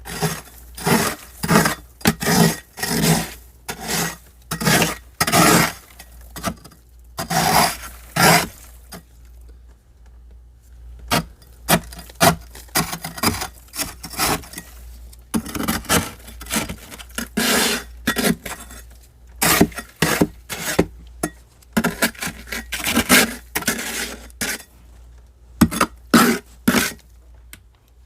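Thick frost being scraped off the inside walls of a deep freezer in a run of short, crisp strokes, about one or two a second, with a pause about ten seconds in.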